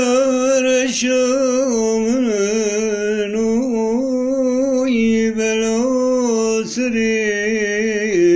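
A man singing unaccompanied in long held, ornamented notes with a wavering pitch, broken only twice very briefly.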